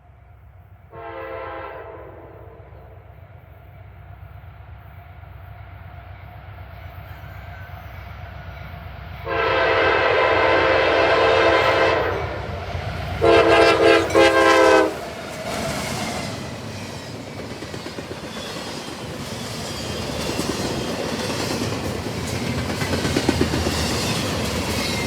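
Locomotive's Nathan K5LA five-chime air horn sounding a brief blast, then a long blast, then a quick run of short blasts as the train nears. A fast double-stack freight train then passes close by, its wheels clattering over the rail joints in a rumble that grows louder toward the end.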